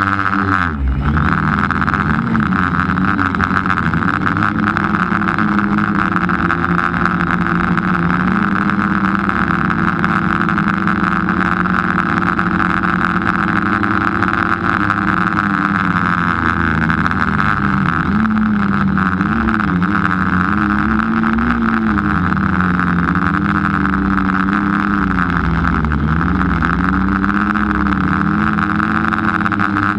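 Camera drone's electric motors and propellers whirring steadily overhead, their pitch wavering up and down as the drone adjusts its flight, with a constant airy hiss.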